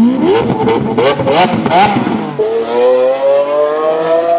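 A sports car engine revved hard in several quick blips with sharp cracks from the exhaust. It is then held in one long, steady rise in pitch that cuts off abruptly near the end.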